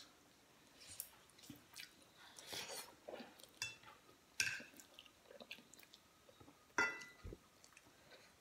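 People eating instant noodles with chopsticks: quiet chewing and slurping of noodles, with a few sharper bursts about two and a half, four and a half, and seven seconds in, and light clicks of chopsticks against plates.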